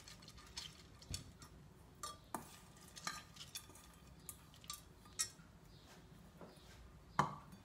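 A few light, scattered metallic clinks and taps from a stainless steel bowl knocking against a stainless steel pot as washed red lentils are tipped in, with a sharper knock near the end.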